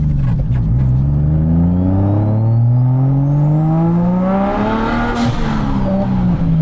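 Turbocharged Nissan RB straight-six in a Datsun 280Z, heard from inside the cabin, accelerating hard through a gear. The engine note climbs for about five seconds with a rising turbo whistle. At the upshift there is a short rush of air, and the pitch drops as the whistle spools down.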